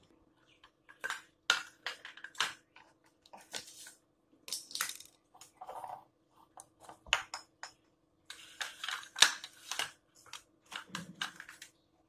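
Glass spice jars with plastic lids and small steel shakers being picked up and set down on a kitchen counter: a long run of irregular clinks, knocks and clatters.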